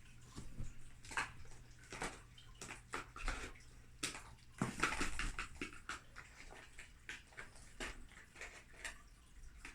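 Kittens pawing and scratching at a cardboard treat puzzle box: irregular rustling, scraping and light tapping on cardboard, with a denser flurry about halfway through.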